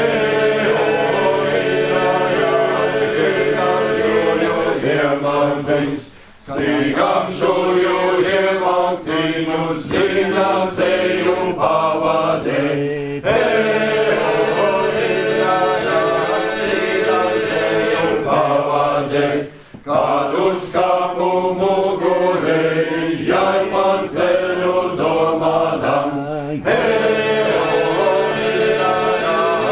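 A group of men singing a cappella in several parts over a steady held low drone. The singing breaks off briefly twice, about six and twenty seconds in.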